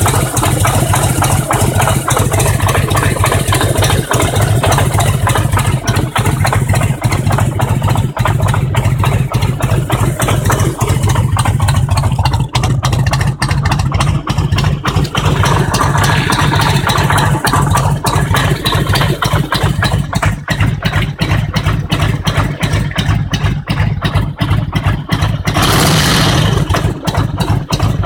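Harley-Davidson Road King's Twin Cam 88 air-cooled V-twin engine idling with fast, regular strokes, briefly getting louder about 16 seconds in and again near 26 seconds. It carries the strange knock that appeared at around 50,000 miles.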